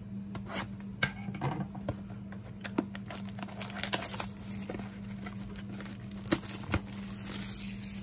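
A cardboard trading-card blaster box being cut open with a folding knife and handled: scattered clicks and taps, then from about three seconds in a steadier crinkling as the plastic-wrapped card packs are shaken out of the box.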